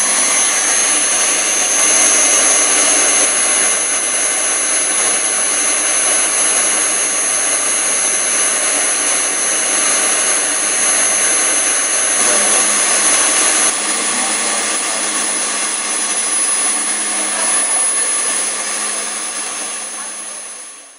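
Quadro Ytron ZC0 rotor-stator powder disperser and its flexible vane impeller recirculation pump running together: a loud, steady high-pitched machine whine over a low hum, while carbon black powder is drawn in and dispersed into motor oil. One of the high tones drops out about two-thirds of the way through, and the sound fades out at the very end.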